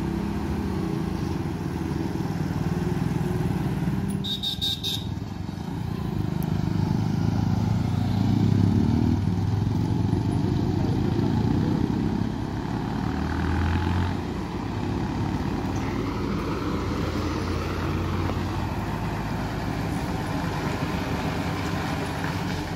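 Heavy loaded lorry's diesel engine labouring at low revs as the truck crawls round a steep hairpin bend, louder from about six to twelve seconds in. A brief high beep sounds about four seconds in.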